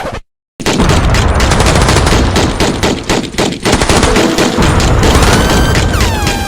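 Loud, rapid automatic gunfire, many shots a second in a continuous stream, starting after a brief hiss and a half-second gap. Near the end, repeated falling whistling tones join in.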